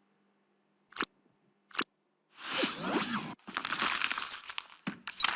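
A run of short stock sound effects for video editing: two brief sharp hits about a second apart, then a noisy rush with sliding pitches, running into a dense rough noise that ends in a few quick clicks.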